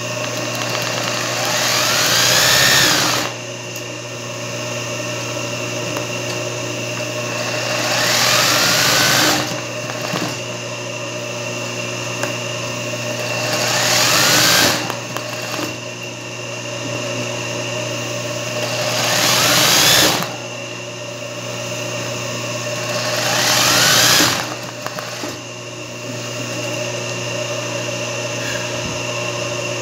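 Singer 20U industrial zigzag sewing machine doing free-motion satin-stitch embroidery. Five bursts of fast stitching stand out, each a whine that rises in pitch and cuts off suddenly, over a steady motor hum between the bursts.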